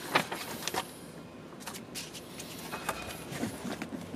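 Paper receipts and a service-book wallet being handled: a string of light rustles and sharp taps, with the wallet picked up near the end.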